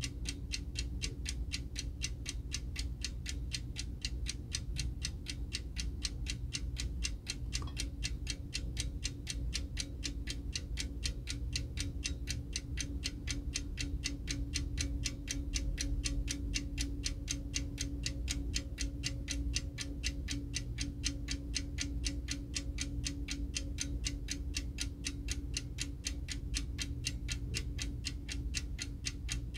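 Tokyo Clock eight-day-wind mechanical alarm clock from the 1950s–60s ticking as it runs, with quick, even ticks.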